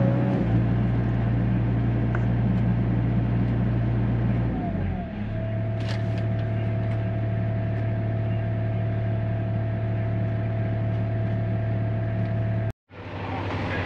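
Hyundai HX85A excavator's diesel engine running steadily, heard from inside the cab. About five seconds in, the engine note shifts and a steady whine comes in and holds. The sound cuts out briefly near the end, then resumes.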